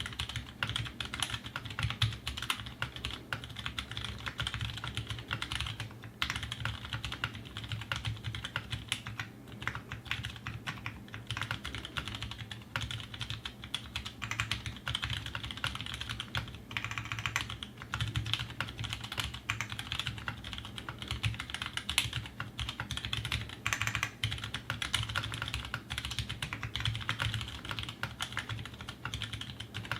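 Continuous fast typing on a custom 60% mechanical keyboard: Halo Ergo tactile switches (Halo housings, Cherry MX Clear stems, 62 g springs) on an aluminium plate, capped with GMK keycaps, clacking in a dense stream of keystrokes.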